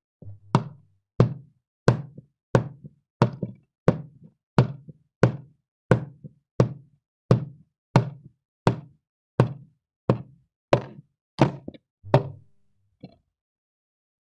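Slow, even footsteps of hard-soled shoes on a hard floor, about eighteen steps at roughly one and a half a second, each with a short echo. After the steps stop, one lighter tap.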